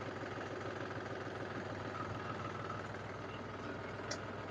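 Mahindra B275 DI tractor's three-cylinder diesel engine idling steadily, with a light click near the end. The tractor's hydraulic lift is stuck raised with both levers down, a fault that makes the engine labour, but here the engine sound is still unchanged.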